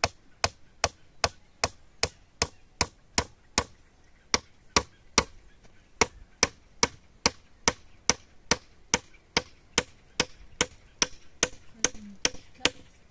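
Steady run of sharp blows at an even pace, about two and a half a second, like a tool striking wood or a hard surface.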